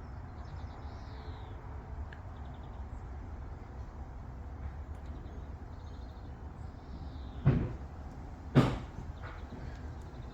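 Two sharp knocks about a second apart near the end, over a steady low rumble, with faint bird chirps.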